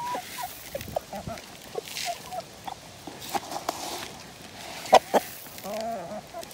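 Chickens clucking close by: a scatter of short, soft clucks from several hens and roosters. About five seconds in come two sharp knocks.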